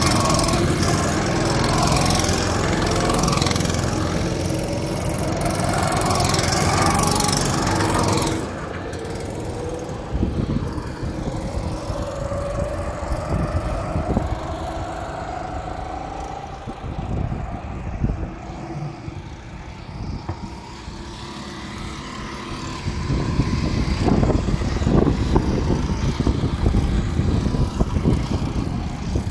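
Go-kart engines revving as karts pull away from the pit area, the pitch rising and falling, then dropping away suddenly about eight seconds in. Karts then run on the circuit at a distance, their engines fainter, with louder rumbling noise near the end.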